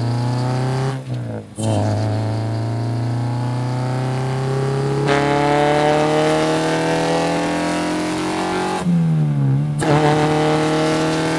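8th-generation Honda Civic Si's four-cylinder engine heard from inside the cabin, accelerating hard through the gears: the revs climb steadily, drop briefly at a gear change about a second in and again near nine seconds, and the engine note turns harsher about halfway through the second pull.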